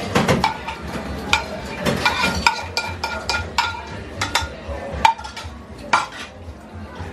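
Metal utensils clinking and scraping against pots and dishes in a restaurant kitchen: about a dozen irregular, ringing clinks.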